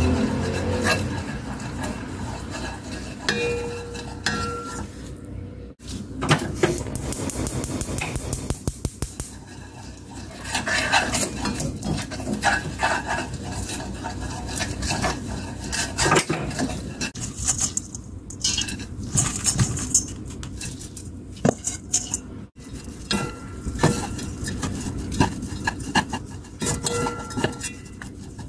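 Wooden spatula stirring and scraping a simmering soy-sauce glaze around a nonstick wok, with irregular clicks and scrapes against the pan and a light sizzle. The sound breaks off abruptly twice.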